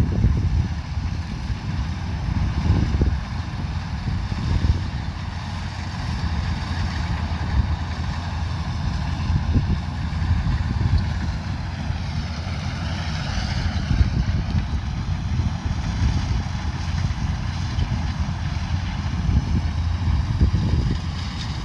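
Kubota combine harvester running steadily in the field, a dense low engine and machinery drone, with a higher whine that rises and falls about halfway through.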